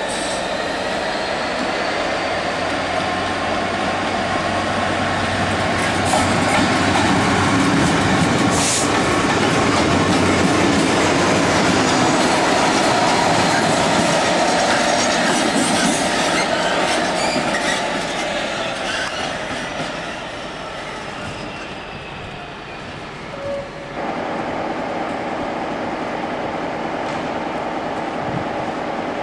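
A pair of Class 66 diesel-electric locomotives, their two-stroke EMD V12 engines running, pass close by with wheels clattering over rail joints. The sound builds to its loudest about ten seconds in and fades by about twenty-two seconds. Near the end it changes suddenly to the steady engine hum of another diesel locomotive at the platform.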